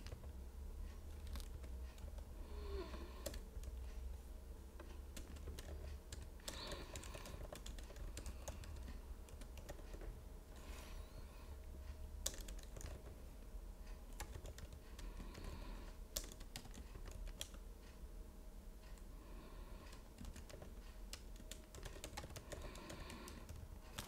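Typing on a computer keyboard: irregular runs of keystrokes while code and git commands are entered, over a low steady hum.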